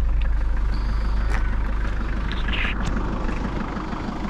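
Diesel engine of a farm vehicle idling steadily, just after its leaking fuel hose was refitted with a hose clamp, with a couple of light clicks.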